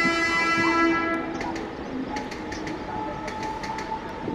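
Mumbai suburban electric local train sounding its horn for about a second and a half, then the train running with a steady whine and regular clicks.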